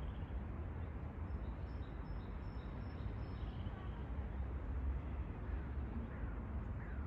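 Outdoor ambience: a steady low rumble with a few faint high bird chirps in the first half and short falling bird calls near the end.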